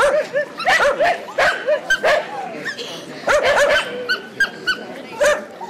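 Puppies barking in short, high yapping barks, several in quick runs with brief gaps between them.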